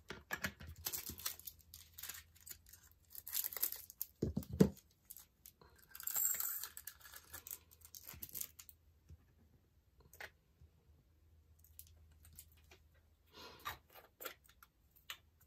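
Small plastic bags of diamond-painting drills crinkling and rustling as they are handled and opened, with light clicks of small plastic storage pots. A louder knock comes about four and a half seconds in, and the handling grows sparse in the second half.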